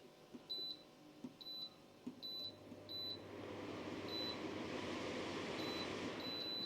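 Midea 5L air cooler beeping with each press of its speed control, about seven short high beeps as the fan is stepped up toward its top speed. The fan's air noise grows louder from about three seconds in and then holds steady.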